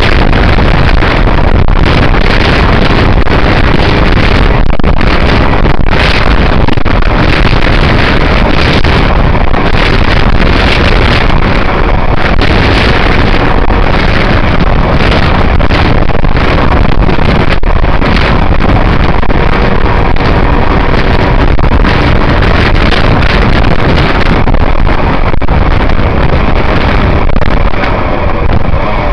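Heavy, steady wind rush on a helmet camera's microphone while riding an Aprilia RS125 motorcycle, with the bike's two-stroke single-cylinder engine running underneath; it eases slightly near the end.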